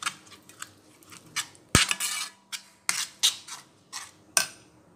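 Steel spoon scraping and clinking against the sides of a pan while stirring a thick paste, in irregular strokes with one sharper knock about two seconds in; the strokes stop shortly before the end.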